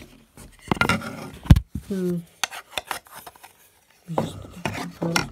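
Handling noise from a phone being moved about: rubbing and knocks on the microphone, with one loud thump about a second and a half in. Brief bits of voice come in near the end.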